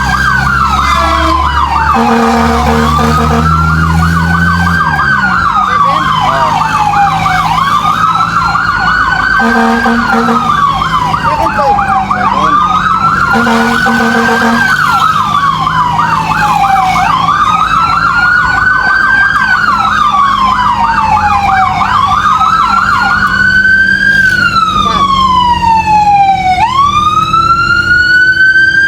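Fire truck's electronic siren wailing, rising and falling about every two and a half seconds with a fast warble over it, and three short horn honks in the first half.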